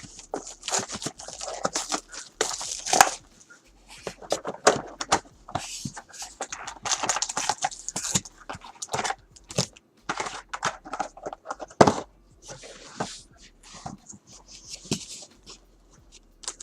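Sealed trading card box being opened by hand: plastic wrapping torn and crinkled, cardboard rustling, with scattered sharp clicks and crackles.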